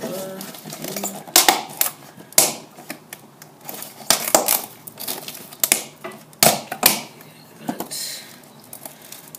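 Crumpled newspaper packing and a cardboard box being handled: irregular crackles, rustles and light knocks, a dozen or so spread unevenly.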